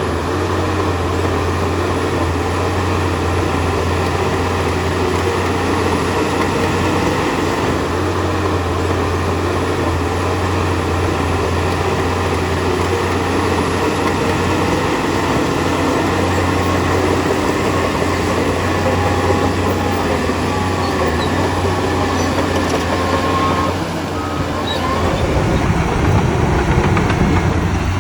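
Heavy diesel earthmoving machinery running steadily with a deep, continuous engine drone. About 24 seconds in the sound dips briefly, then returns a little louder.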